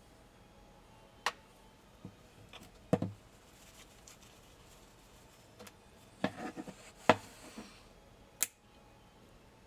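Sharp metallic clicks and knocks from the parts of a PPSh-41 submachine gun being handled and worked apart, coming in scattered, irregular strokes. The loudest knocks are about three seconds in and about seven seconds in, the second within a quick cluster.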